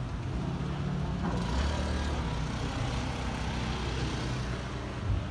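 Steady low rumble of a motor vehicle's engine, with a short thump just before the end.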